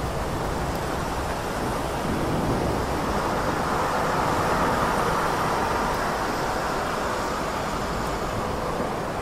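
Heavy rain falling over city traffic on wet roads, a steady hiss with a low rumble underneath. A wash of noise swells up about two seconds in and fades away near the end.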